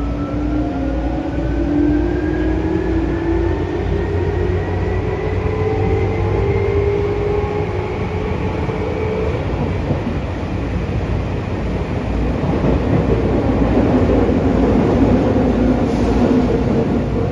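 Tokyu 8500 series subway train's Hitachi chopper control and traction motors whining, several tones rising steadily in pitch as the train accelerates out of a station. In the second half the whine fades into a louder running rumble of the car in the tunnel.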